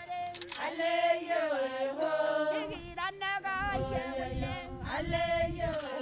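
Background music of voices singing together in a chant-like style, with a low rumble joining underneath about halfway through.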